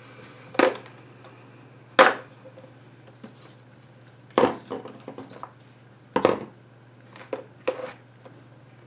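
Small plastic paint squeeze bottles and jars set down one by one on a desk: four sharp knocks a second or two apart, then a couple of lighter clicks near the end, over a low steady hum.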